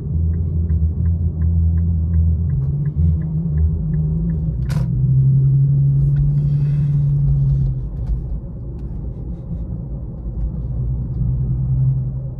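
Infiniti Q50 3.7's V6 engine running low inside the cabin, with the turn signal ticking about three times a second for the first few seconds as the car turns left. A sharp click comes just before halfway, then the engine pulls harder for about three seconds and eases off.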